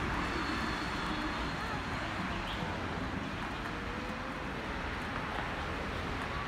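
Steady outdoor city ambience: a constant hum of traffic, with a faint voice in the background.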